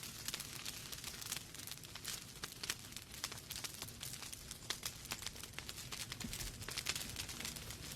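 Wood fire burning in a fireplace: logs crackling and popping in many irregular sharp snaps, over a steady low rumble of the flames.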